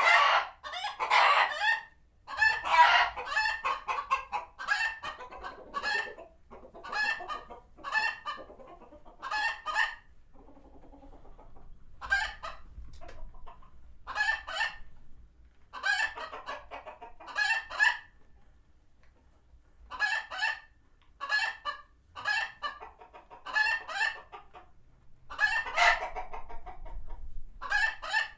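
A flock of chickens cackling and clucking in alarm at a passing hawk, loud calls repeated every second or two, with a short lull about ten seconds in and another near two-thirds of the way through.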